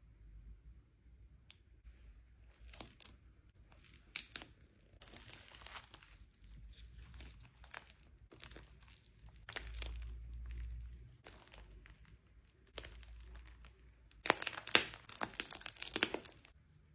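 Slime being squeezed and stretched by hand, giving irregular crackling and popping, densest and loudest near the end.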